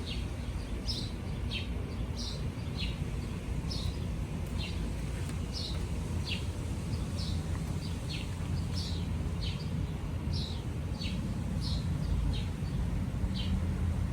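A small bird chirping over and over, short high notes that drop in pitch, about one to two a second, over a steady low rumble.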